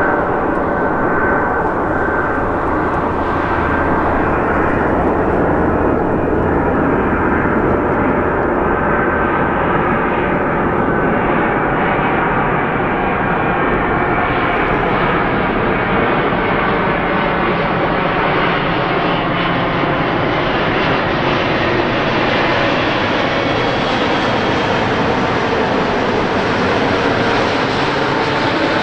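Boeing 777-200ER's jet engines on landing approach: a loud, steady roar that grows brighter and higher-reaching as the airliner draws nearer.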